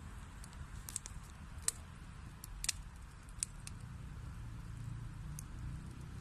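Wood fire burning in a fireplace: a steady low rumble of flames with irregular sharp crackles and pops from the burning wood, two of them louder a little under two seconds and nearly three seconds in.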